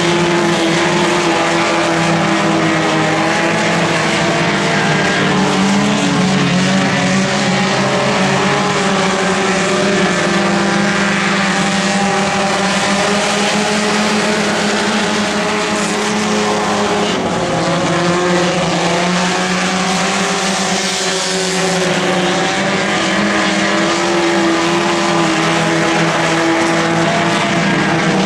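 A pack of front-wheel-drive dirt-track race cars running laps, several engines revving together in a loud, steady drone whose pitches drift up and down as the cars go around.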